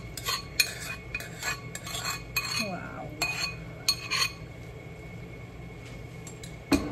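Metal spoon scraping and clinking against a ceramic bowl as beef and peppers are scraped out of it into a frying pan: a quick run of clinks over the first four seconds, then quieter, with one sharp knock near the end.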